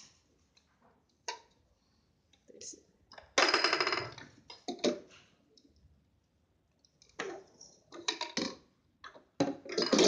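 Handling noises while cables and plastic-wrapped parts are connected to a vacuum-pump machine: scattered clicks and knocks, with a louder rustling burst lasting about a second, three and a half seconds in, and a cluster of rustles and knocks in the last three seconds.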